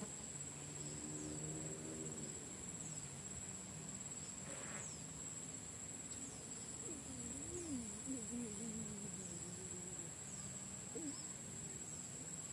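Steady high-pitched insect drone with short falling chirps repeating about once a second. Faint wavering low tones come in early on and again past the middle.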